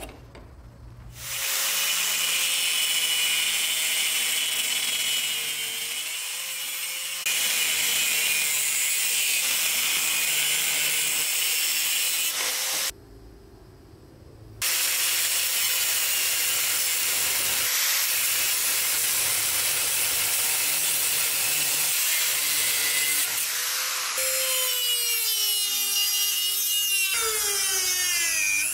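Electric grinders with thin cut-off discs cutting steel: a steady high motor whine under a dense grinding hiss. It breaks off for about two seconds around the middle, and near the end the motor's pitch slides down and back up as the disc bites and eases.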